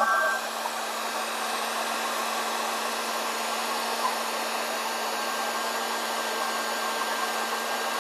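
Small electric heat gun running steadily, blowing hot air onto a heat-shrink butt connector to shrink and seal its ends: an even rush of air over a steady low hum from its fan motor.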